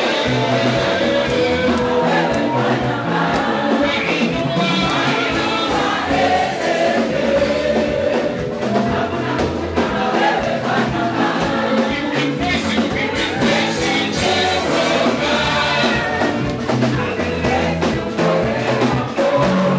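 Gospel band playing, with a choir of voices singing over a steady bass line.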